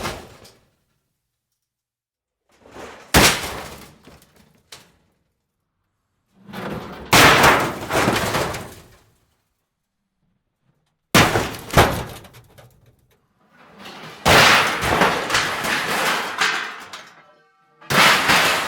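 A string of separate metal sound effects with silence between them: a short metal hit, a longer crash, two sharp hits, a long crashing, clattering stretch with a faint metallic ring, then another hit near the end.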